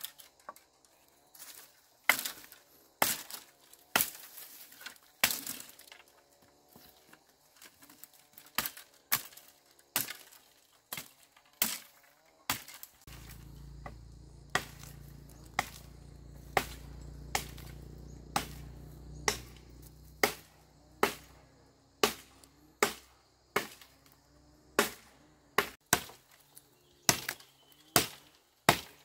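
Dry branches being chopped with a blade: a sharp crack of wood about once a second, over and over. A low rumble runs underneath for several seconds in the middle.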